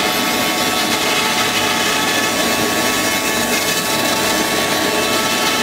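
CNC router spindle running steadily as its bit carves expanded polystyrene foam: a steady whine of several held tones over a continuous cutting hiss.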